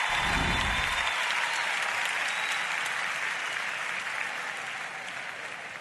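Stadium crowd applauding a fault-free show-jumping round. The clapping fades gradually.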